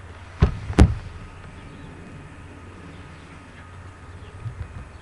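Two sharp knocks a little under half a second apart near the start, over a steady low hum.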